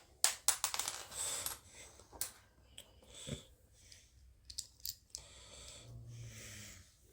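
Light clicks and clatter of metal-and-plastic Beyblade tops being handled, several quick clicks in the first second and a half, then a few scattered ones.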